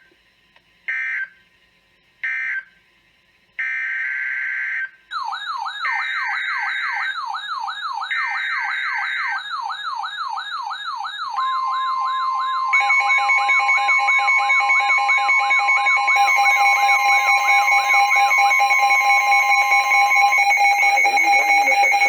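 Emergency Alert System data bursts on NOAA Weather Radio: three short bursts close one warning, then three longer bursts open the next. From the longer bursts on, a siren-like alert tone sounds, sliding down in pitch about twice a second. Near the middle a steady alarm tone comes in, and a second steady two-tone alarm joins it and carries on to the end.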